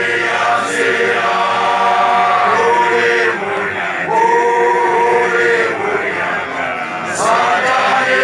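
A group of voices chanting a song together in unison, in phrases of long held notes with short pauses between them.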